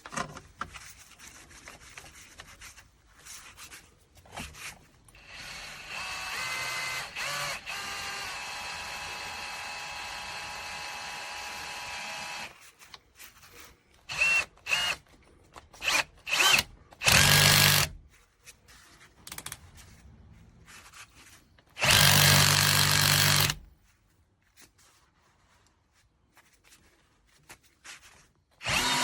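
Drill/driver running the RAPID RP160 rivet-nut adapter in several separate runs: a steady run of about six seconds, then a few short, louder bursts and two longer loud ones of a second or two.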